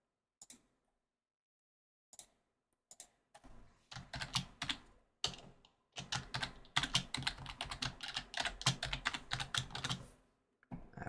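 Typing on a computer keyboard: a few single clicks, then a fast run of keystrokes from about three and a half seconds in until shortly before the end.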